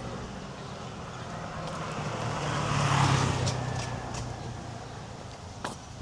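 A motor vehicle passing close by: its engine hum and tyre noise swell to a peak about halfway through, then fade away. A sharp click comes near the end.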